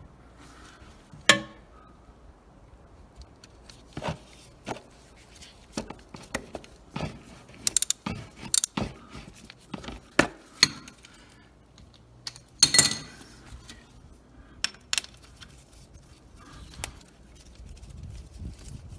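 Scattered metallic clicks and clinks of a socket wrench and long extension being fitted onto and worked on a motorcycle's oil drain plug, with two louder clanks, one about a second in and one about two-thirds through.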